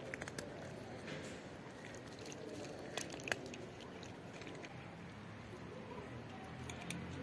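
A cat eating, with faint wet chewing and a few sharp little clicks.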